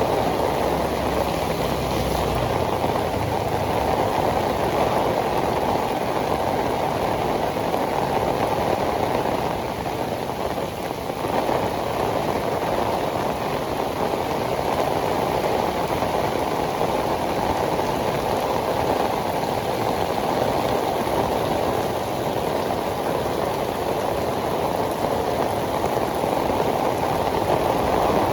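Heavy tropical rain pouring down on pavement: a dense, steady hiss of drops. A low rumble dies away in the first couple of seconds.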